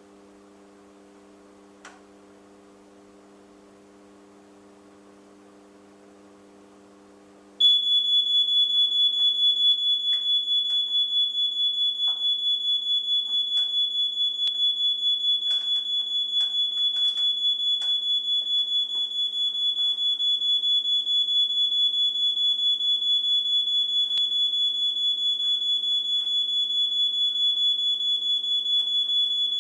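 Fire alarm going off: after several seconds of faint low hum, a loud, piercing high-pitched tone starts suddenly about seven and a half seconds in and sounds continuously.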